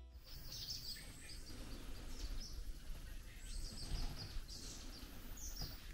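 Faint outdoor ambience: scattered short, high bird chirps over a low, steady background noise.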